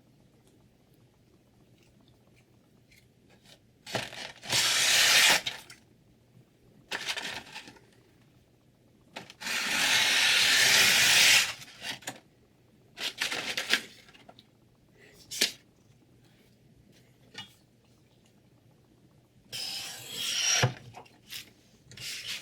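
Irregular scraping strokes of a knife blade against a sharpening stone, some short and one lasting about two seconds, with light knocks and a click in between.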